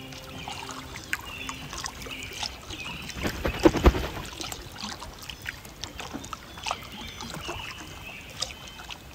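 Water splashing on a calm lake: scattered small splashes and drips, with a close cluster of louder slaps and splashes about three to four seconds in.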